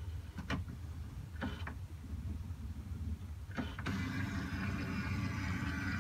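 HP Photosmart Plus flatbed scanner warming up with a few short clicks, then about four seconds in its scan-head motor starts a steady whirring as the overview scan begins.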